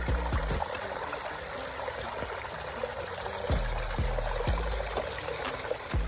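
Shallow creek water trickling and gurgling over rocks and mud, with a few short scrapes and knocks of a shovel digging in the streambed.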